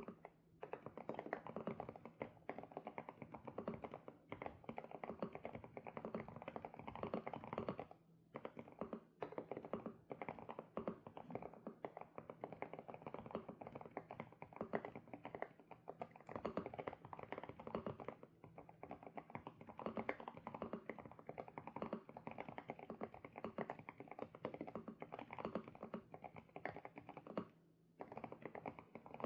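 Continuous fast typing on an SPM PL108W mechanical keyboard with Sunset switches: a dense run of key clacks, broken by short pauses just after the start, about eight seconds in and near the end.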